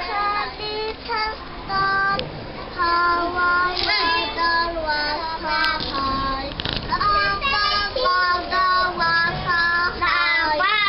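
A child singing a children's song, a melody of short held notes in a steady rhythm.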